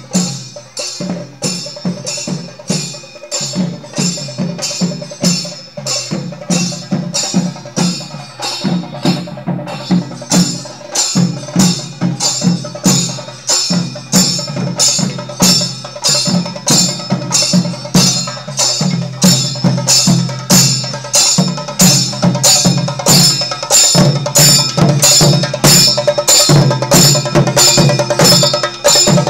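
Temple festival procession percussion: drums beaten in a steady rhythm of about three to four strokes a second, with a metallic ringing over the beat, growing louder toward the end.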